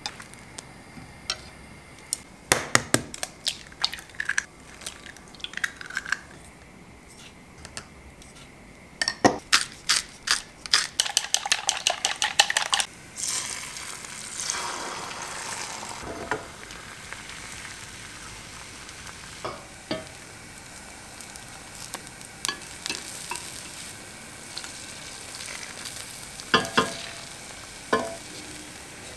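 Chopsticks clicking quickly against a glass bowl as eggs are beaten. Then the beaten egg is poured into a hot rectangular tamagoyaki pan and sizzles steadily, with chopsticks tapping the pan now and then as the omelette is rolled.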